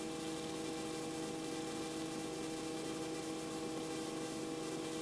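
Robinson R44 helicopter running, heard as a steady hum with several fixed tones over a hiss, as picked up through the cockpit intercom.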